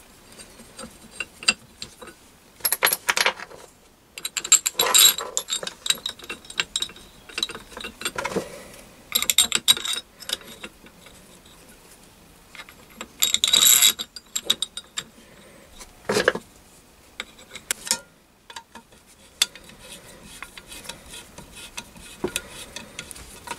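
Metal parts of a lathe milling slide and its bracket plate clinking, scraping and rattling as they are handled and fitted, in several short bursts with scattered clicks between.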